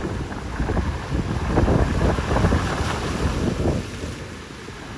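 Gusty wind buffeting the microphone over ocean surf breaking on the shore; the wind eases off near the end.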